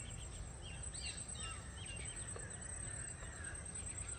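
Rural outdoor ambience: birds calling in many short chirps over a steady high-pitched whine and a low steady rumble.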